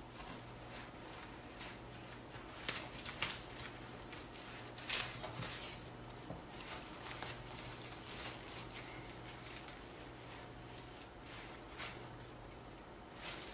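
Bamboo sushi rolling mat and plastic wrap being handled on a wooden cutting board as a sushi roll is pressed and rolled: soft rustles and crinkles with light clicks of the bamboo slats, one longer rustle about five seconds in. A faint steady low hum lies underneath.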